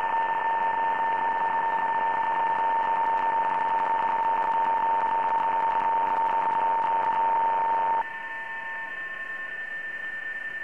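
Receiver audio from a software-defined shortwave transceiver tuned to the 20-metre PSK-31 band: steady hiss full of many thin, steady PSK-31 tones, one much louder than the rest. About eight seconds in the loud signal ends and the audio drops in level, leaving the weaker tones over the hiss.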